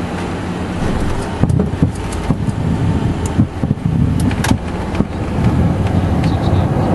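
Cessna Citation V Ultra's cockpit on touchdown and landing roll: a steady rumble of the turbofan engines and airflow, with a run of knocks and rattles from the wheels and airframe on the runway between about one and a half and four and a half seconds in. The noise swells near the end as thrust reverse is used for a quick deceleration.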